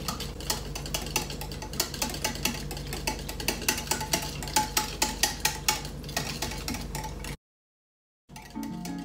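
A whisk beating a liquid sauce in a glass measuring jug, a fast, uneven run of clicks and taps against the glass. It cuts off abruptly about seven seconds in, and acoustic guitar music starts near the end.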